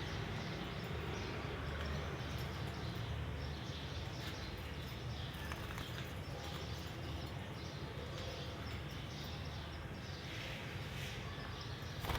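Fischer's lovebirds giving a few faint, scattered chirps over a steady low rumble of background noise.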